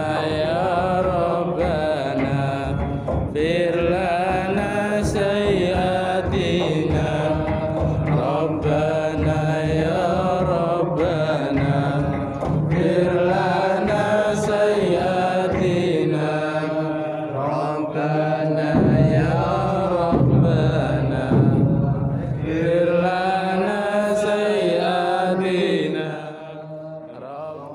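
Islamic devotional chanting: a melodic sung recitation running on without a break, its pitch rising and falling in long phrases, dropping lower near the end.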